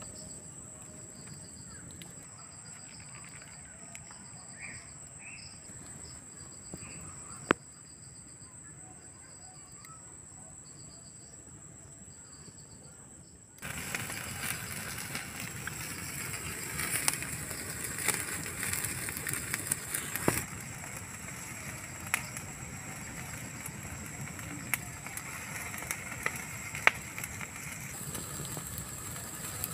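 Open wood fire burning under a spit-roasting chicken, with scattered sharp crackles and pops; it jumps much louder about fourteen seconds in. Faint repeated high chirps sound in the quieter first part.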